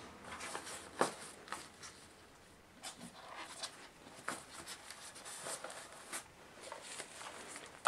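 Model train cars being handled in a polystyrene box tray: scattered light knocks and clicks of plastic bodies against the packaging, with soft rustling between them, the sharpest knock about a second in.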